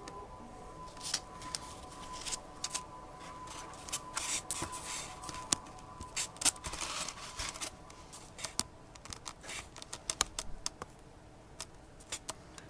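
Pencil tracing around a thin acetate stencil on paper: irregular scratchy strokes with light taps and clicks as the stencil is handled.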